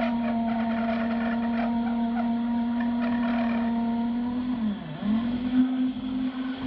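Electric drill boring into a thick concrete wall: a steady motor whine with a gritty grinding of the bit. Just before five seconds in the motor's pitch dips sharply and comes straight back up as it slows under load, and the grinding goes uneven after that.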